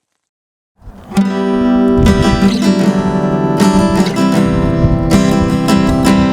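Music with a strummed acoustic guitar, starting abruptly about a second in after a moment of silence.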